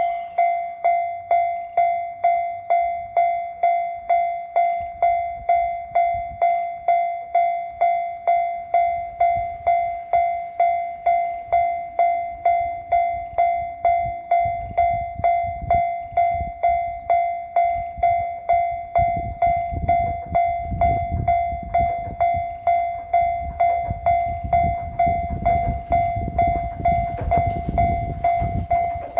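Level-crossing warning bell ringing steadily, about one and a half strikes a second, as a two-car KiHa 200 diesel railcar approaches. The low rumble of the train builds from about halfway in and grows loudest near the end.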